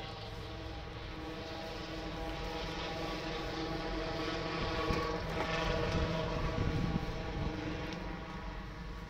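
A steady engine drone with a humming pitch, swelling louder about halfway through and fading toward the end, with a few low bumps at its loudest.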